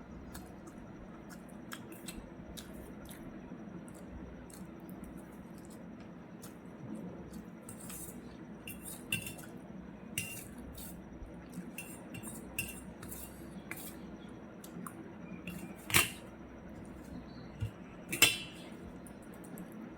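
Eating utensil clinking and scraping against a plate or dish in a string of small clicks, with two louder sharp clinks about two seconds apart near the end.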